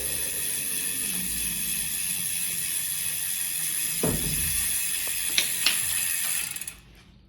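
Fast, continuous ratcheting clicks as new pedals are threaded onto a bicycle's cranks, with a low knock about four seconds in and two sharp clicks a little later; the ratcheting stops abruptly near the end.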